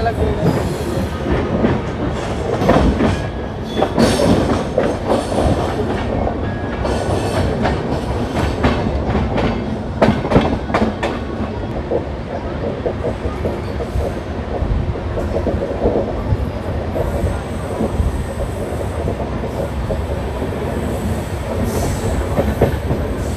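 Passenger express train running along the line: a steady rumble of the coaches with wheels clacking over rail joints, the clacks thickest in the first half.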